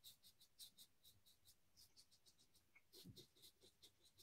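Mühle Rocca R96 safety razor with a Gillette double-edge blade cutting lathered stubble: faint, quick scratching strokes, several a second. A soft thud about three seconds in.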